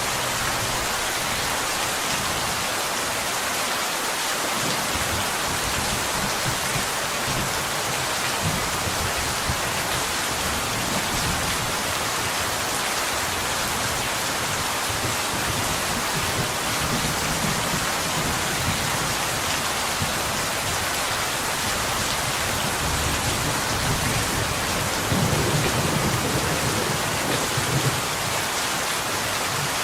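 Steady rain falling on a window, an even hiss of drops. In the second half a low thunder rumble comes in, loudest a few seconds before the end.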